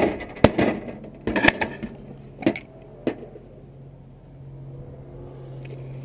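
Several sharp knocks of a tool striking a water heater's brass valve while its stuck inner part is worked loose, all in the first three seconds. After that a steady low hum comes in and runs on.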